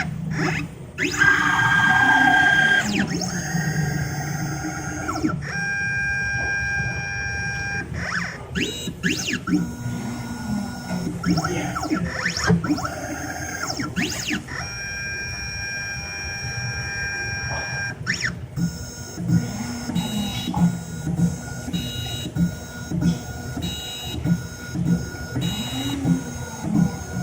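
Stepper motors of a 3D Xtreme key machine driving its tracer over a Schlage SC1 key: steady whining tones that change pitch every few seconds, with a falling glide about a second in. In the last third the whine gives way to a run of short, regular pulses as the tracer steps along the key.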